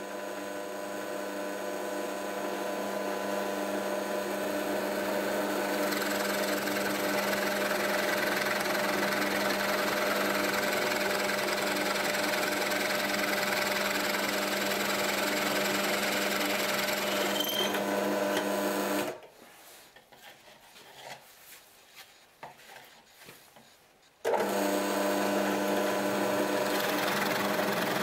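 Drill press running with a steady motor hum while its bit bores into ash, the cutting noise over it. The sound drops out abruptly about nineteen seconds in and comes back just as suddenly some five seconds later.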